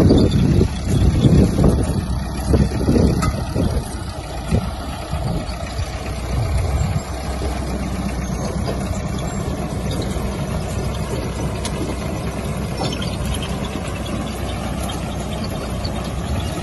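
International tractor engine running steadily as it pulls a working potato harvester. Wind gusts buffet the microphone during the first few seconds.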